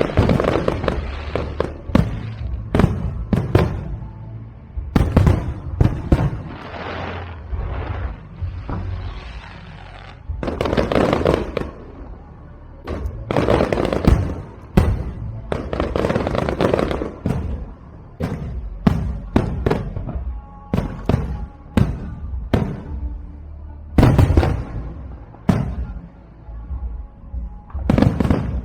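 Aerial fireworks shells bursting overhead in rapid, irregular volleys: sharp bangs and deeper booms, many followed by crackling, with brief lulls between clusters.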